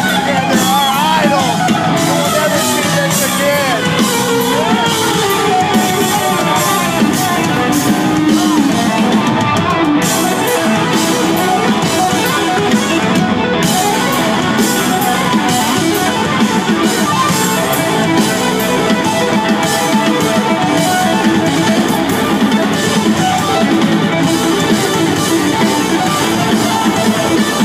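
Live rock power trio playing an instrumental passage: electric guitar, electric bass and drum kit. Notes slide up and down in the first few seconds, then the band plays on steadily and loud.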